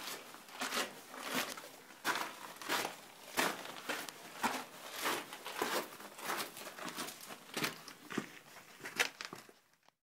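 Footsteps crunching on a gravelly sand trail floor at a steady walking pace, about one and a half steps a second, cutting off suddenly near the end.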